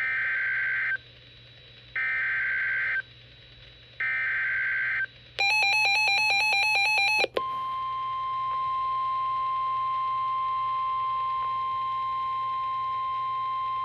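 Emergency Alert System signalling: three one-second bursts of warbling data tones about a second apart (the digital SAME header that encodes the alert), then about two seconds of a louder, rapidly switching electronic tone, then a steady single-pitch attention tone near 1 kHz, typical of the NOAA Weather Radio 1050 Hz warning alarm.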